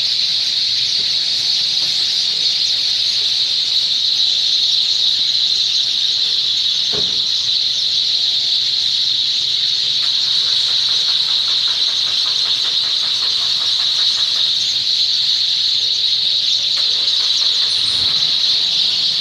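A large flock of sparrows chirping all at once in a dense, unbroken, high-pitched chorus, the evening roost chorus of birds gathering in a tree clump at dusk.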